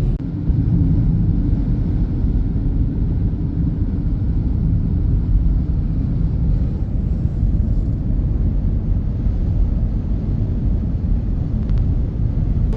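Small car driving, a steady low rumble of engine and tyre noise on the road.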